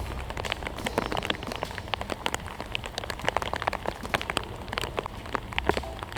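Rain pattering, with many close, irregular drop taps.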